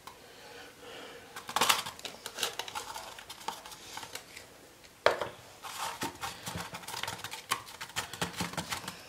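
Light clinks, taps and paper rustling from a teaspoon, a paper cone and a glass bottle being handled as baking powder is tipped into vinegar and the bottle shaken to mix, with a quick run of several clicks a second over the last few seconds.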